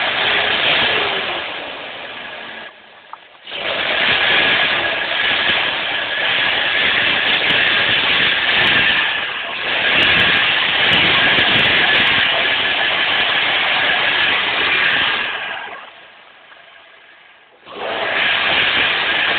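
Loud rushing hiss of water spraying up around a van. It dips out briefly about three seconds in and again for about two seconds near the end.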